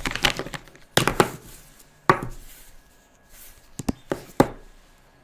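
Plastic felt-tip pens clicking and knocking as they are handled and set down, a series of sharp, irregular knocks, some with a brief ring.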